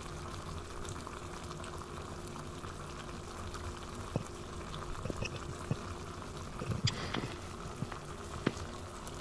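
Thick chicken curry gravy bubbling at a boil in an earthenware handi pot. Soft pops of bursting bubbles come more often from about halfway through.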